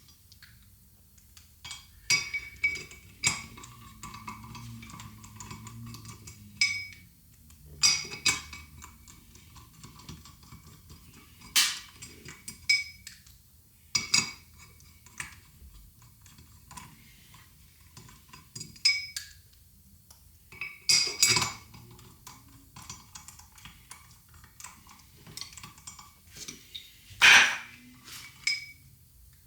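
Irregular metal clinks and taps from steel bolts and hand tools being handled while the bolts joining a Toyota hub and brake rotor are started by hand. Each clink rings briefly, and the loudest comes near the end.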